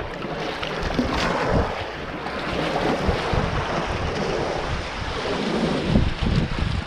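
Small waves washing and splashing at the shoreline close to the microphone, with wind buffeting the mic.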